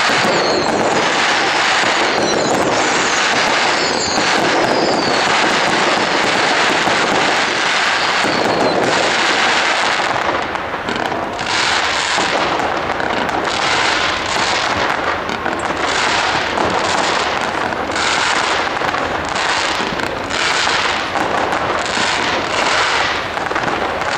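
Fireworks display going off: for about ten seconds a dense, continuous crackle with a few short falling whistles, then a rapid, even series of shots about every 0.7 seconds.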